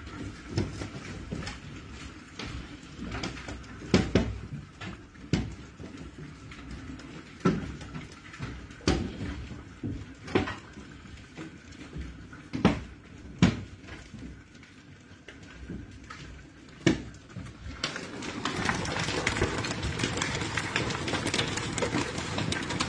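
Large hailstones striking hard surfaces: scattered single sharp knocks, about one a second, some much louder than others. About three-quarters through, a steady rush of heavier hail and rain builds up.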